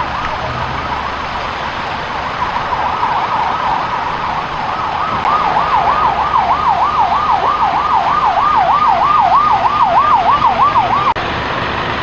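Emergency vehicle siren in a fast yelp, sweeping up and down about three times a second. It starts faint, grows louder about halfway through and cuts off suddenly near the end, over a steady background noise.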